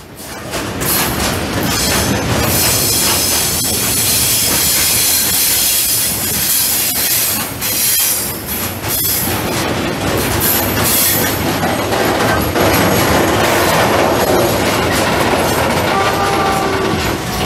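Freight wagons rolling past close by: a steady, loud rush of steel wheels on rail with a thin high-pitched wheel squeal, and a few short squealing tones near the end.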